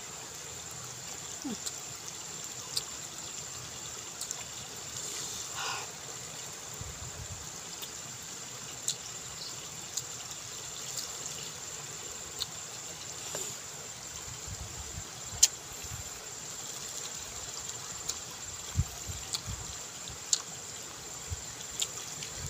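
Mouth sounds of someone eating by hand: scattered sharp clicks and smacks of chewing, with a cluster of them near the end, over a steady outdoor hiss and a thin high whine.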